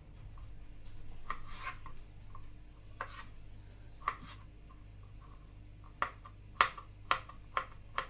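Knife cutting vegetables on a cutting board: a brief scrape about a second in, then separate cuts that come faster, about two a second, near the end.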